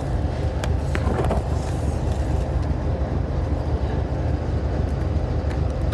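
Steady low rumble of a car on the move, road and engine noise heard from inside the cabin, with a faint steady hum and a few light clicks.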